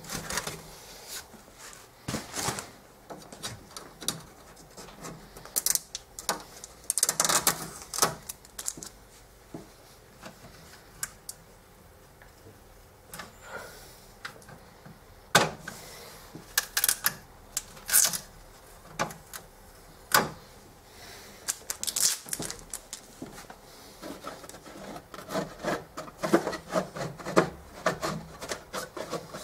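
Irregular clicks, knocks and rubbing of hands handling a 3D printer's plastic parts and packing material, with quieter stretches in the middle and busier handling near the end.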